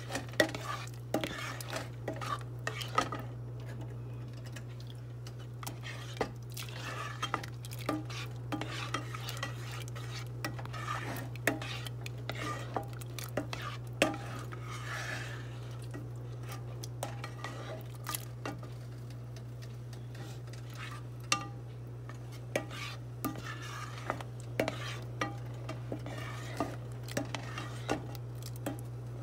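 A plastic spoon stirring a thin creamy corn sauce in a metal saucepan, with irregular scrapes and light knocks against the pan, over a steady low hum. The sauce is being stirred until it starts to thicken.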